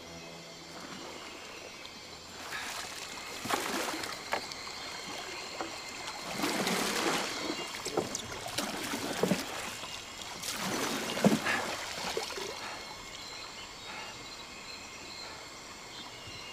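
River water splashing and trickling, in several swelling surges with sharp splashes between about two and thirteen seconds in, over a faint steady rush of the river.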